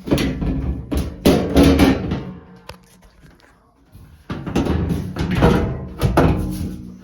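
Loud knocks and clatter as the top panel of an LG front-load washer is handled and set back in place, each knock followed by ringing. The knocks come in clusters, with a pause in the middle.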